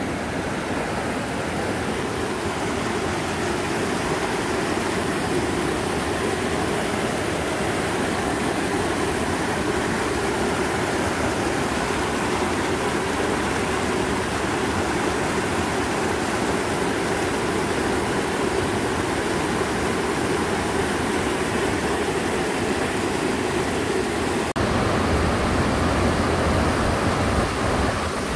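Steady rush of river water pouring over rocks at a waterfall. A deeper rumble joins it near the end.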